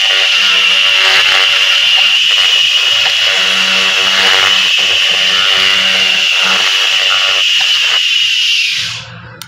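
3 kW laser cleaner ablating grime off an aluminium gearbox casing: a loud, steady hissing crackle with a high whine. It cuts off about nine seconds in.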